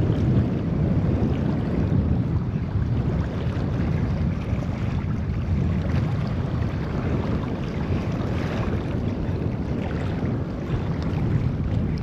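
Wind buffeting the microphone: a loud, rumbling, gusting low roar with no breaks.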